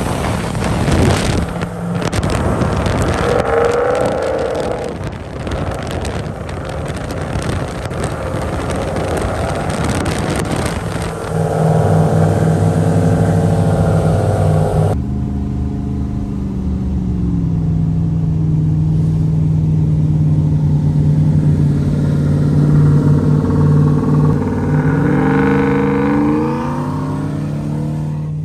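A race-prepped car's engine running under way, rising in pitch as it accelerates, once early on and again near the end. There is an abrupt change in the sound about halfway through.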